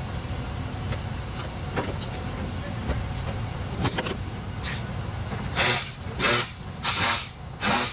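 Four short, loud, noisy bursts about two-thirds of a second apart in the second half, from a tool worked inside the stripped driver door of a 1999 Ford F-150, over a steady low rumble.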